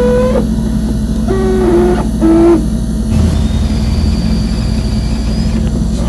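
Consul Frost Free Duplex refrigerator running with a steady low hum and short squealing, voice-like tones: three in the first couple of seconds, each lower in pitch than the last. After that the hum deepens and a thin high whine holds for about two seconds. It is the running noise of the fridge while it cools, the noise its owner says makes it 'talk'.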